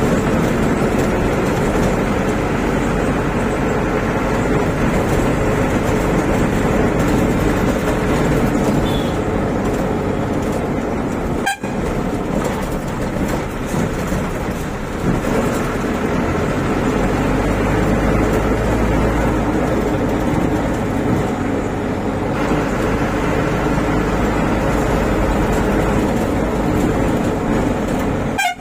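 Van engine and road noise heard from inside the cabin while driving through town traffic, steady throughout, with a brief drop-out about twelve seconds in.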